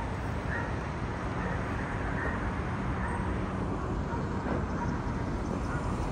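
City street background of traffic noise: a steady, low, even rumble.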